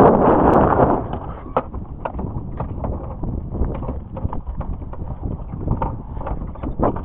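Wind buffeting the microphone, strong for about the first second and then easing, with scattered small knocks and clicks of handling on a small fibreglass boat.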